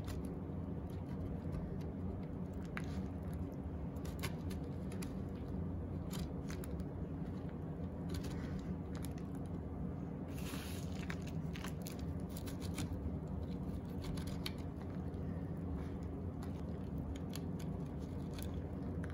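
Scraps of homemade bar soap being rubbed by hand across a flat metal hand grater, giving irregular light scratchy rasps and crumbly crackles over a steady low hum.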